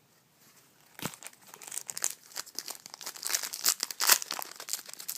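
A 2013 Panini Prestige football card pack's wrapper being crinkled and torn open, after a single knock about a second in.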